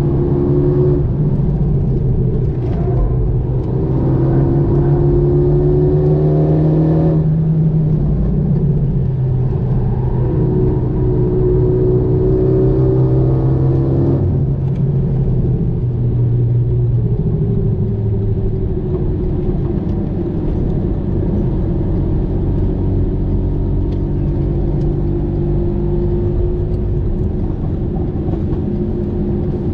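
Renault Mégane 3 RS 275 Trophy's 2.0-litre turbocharged four-cylinder heard from inside the cabin under acceleration: the engine note climbs, drops at an upshift about seven seconds in, climbs again, and after another drop about fourteen seconds in settles to a steadier, slowly falling drone.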